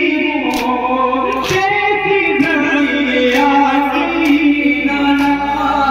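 A noha (Muharram lament) sung in a mournful melody, with a crowd of men beating their chests in matam, the slaps landing in time about once a second.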